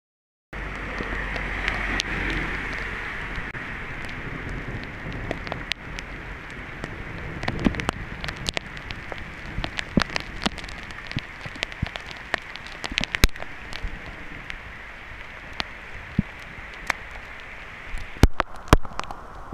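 Heavy rain hissing on asphalt and paving, with scattered sharp ticks of hailstones striking hard surfaces. The downpour sounds heaviest at first and becomes quieter about six seconds in.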